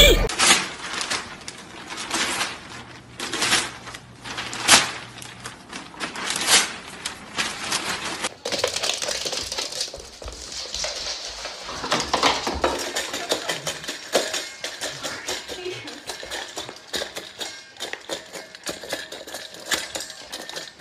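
A dog eating from a stainless steel food bowl on a wooden floor: the bowl clinks and scrapes, with many quick irregular clicks and taps. Earlier, a few separate sharp knocks.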